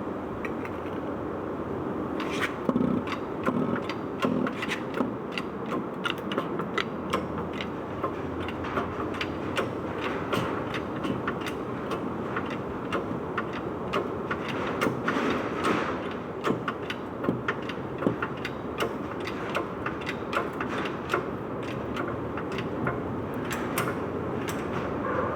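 Peugeot 206 RC drivetrain running with a steady mechanical noise and many quick, irregular clicks and knocks. The uploader names this as the abnormal noise of the bearing in the middle of the drive shaft, the intermediate support bearing.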